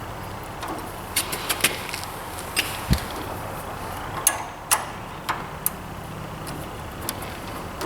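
Irregular light metallic clicks and taps from the crank handle and its fittings being worked off a Kubota BX24 snowblower's chute rotator, with a dull knock about three seconds in.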